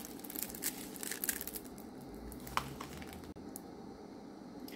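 Faint crinkling and rustling of a diamond-painting canvas's plastic protective film under hands and a tape measure, with scattered light ticks.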